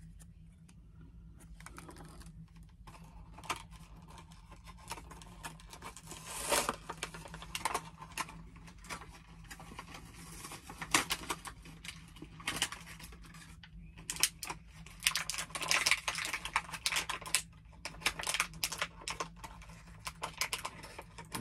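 Plastic blister and cardboard packaging of a carded action figure being handled, torn and crinkled open by hand. Irregular crackles and clicks, sparse at first and busier in the second half.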